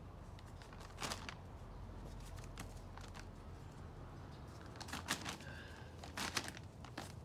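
Scattered rustling and crackling from seed and its bag or container being handled at ground level: a few short crackles, the strongest about a second in and again around five to seven seconds in.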